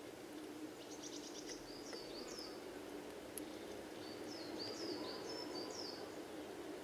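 Small songbirds calling: short, high chirps that slide downward, in a few loose groups, over a steady low hum.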